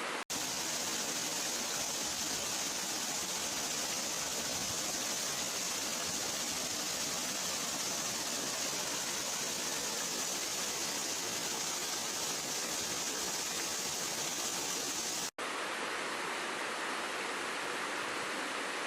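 Waterfall: a steady, even rush of falling water. It is broken twice by a split-second silent gap, just after the start and about three-quarters of the way through.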